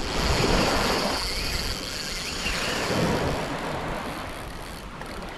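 Wind buffeting the microphone with a rough, fluttering rumble, over a thin steady high hiss that fades near the end.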